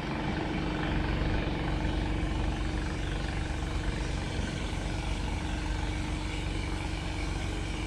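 A steady mechanical hum, like an engine running, over a low even rumble.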